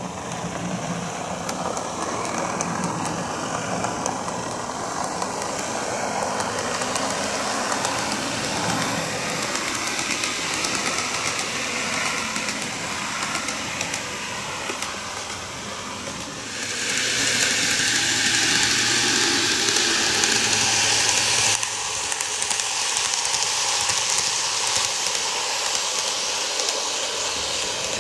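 N-gauge model train running on plastic track: a continuous whirring, rattling run of motor and wheels. About two-thirds of the way in it turns louder and hissier for some five seconds, then drops back.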